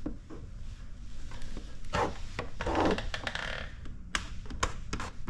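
Squeegee dragged over wet paint protection film, pushing the solution out from under it in a couple of rubbing strokes, followed about four seconds in by a run of sharp clicks and taps.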